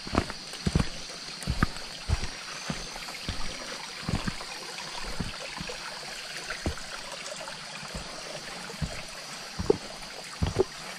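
A stream trickling steadily, with a hiker's irregular footsteps on the trail thudding over it, sparser in the middle and bunching up again near the end.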